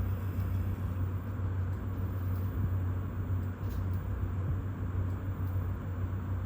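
Steady low machine hum with a faint, even hiss and a few light ticks.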